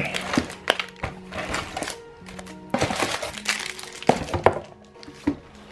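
Plastic-sleeved stationery being lifted out of a cardboard box and set down: irregular rustles of packaging and light knocks, over background music with steady held notes.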